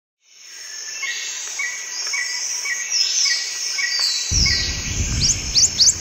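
Jungle ambience of birdsong and insect chirping, fading in from silence. Short chirps repeat about twice a second, a low rumble joins a little past four seconds in, and a run of quick rising whistles comes near the end.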